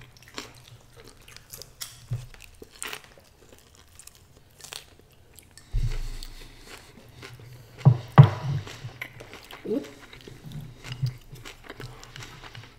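Close-up eating sounds of stir-fried egg noodles with beef: chewing and mouth sounds with scattered light clicks of chopsticks. A dull thump comes about six seconds in and two sharper knocks just before the eight-second mark.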